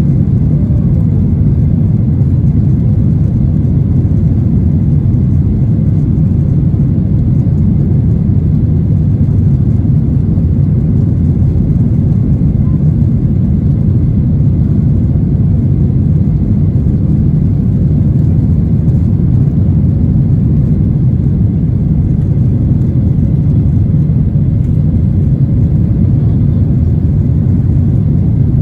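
Steady low rumble of a Boeing 737-900ER's CFM56 jet engines and airflow, heard inside the cabin over the wing during the climb after takeoff.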